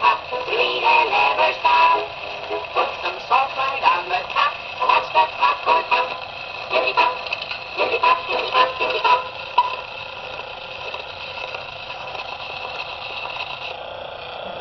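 Marx Lumar wind-up toy phonograph playing a children's song record: thin singing and music with no bass. The song ends about ten seconds in, leaving only the steady hiss of the needle running in the record's groove.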